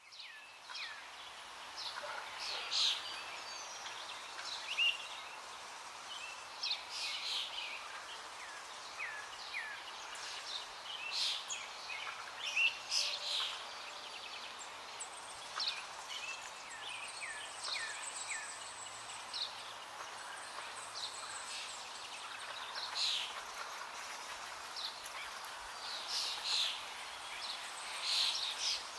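Small birds chirping over a steady background hiss, with short, high calls coming several times a second, some of them quick downward sweeps.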